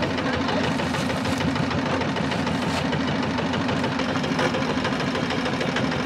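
Small boat's engine running steadily, an even drone that does not change.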